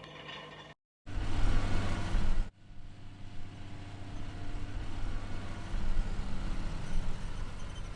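Tractor engine running steadily, broken by two abrupt cuts: a moment of silence about a second in, then a louder rushing stretch for about a second and a half before the steady running returns.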